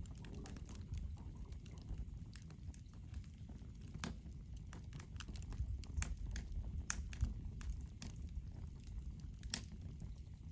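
Wood fire crackling in a fire pit, with irregular sharp pops over a low rumble.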